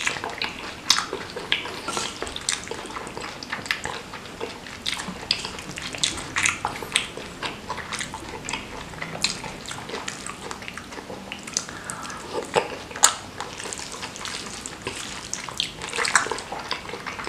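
Close-miked wet chewing and lip smacking of seblak, soft boiled crackers in a spicy chili sauce: many sharp, wet mouth clicks a few times a second, with one louder click a little after the middle.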